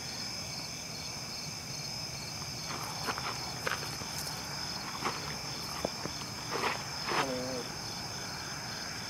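Night insect chorus: a steady high-pitched chirring with a regularly pulsing trill underneath, joined by a few faint clicks and shuffles midway and a brief voice sound about seven seconds in.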